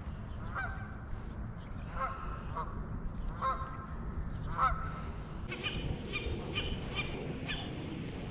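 Geese honking, a call about every second, with a quicker run of higher calls in the second half.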